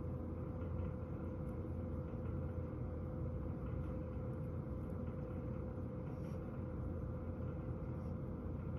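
Warm-air fan heater running: a steady whir with a low hum and a faint, even tone.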